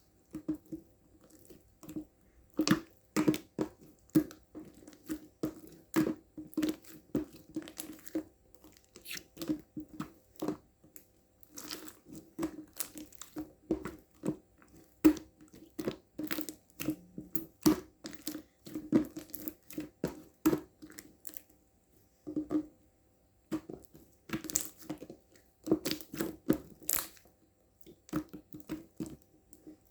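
Milk slime being squeezed, pressed and folded by hand, giving irregular sharp pops and crackles of trapped air in quick succession.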